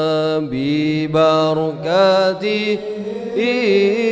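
Man chanting an Arabic tawassul supplication through a microphone and PA, holding and bending long melismatic notes with short breaks between phrases.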